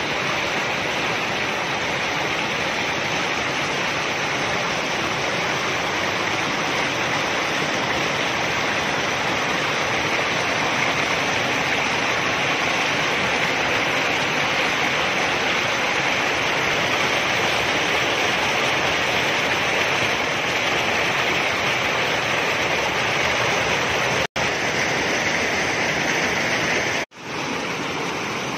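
Mountain stream rushing and splashing down a steep rocky cascade of white water, a steady even rush. Near the end the sound drops out twice for a split second.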